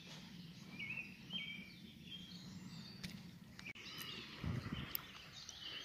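Faint songbird chirps and short warbles come and go over a low, steady rush of water flowing below a river spillway. There are a few faint clicks.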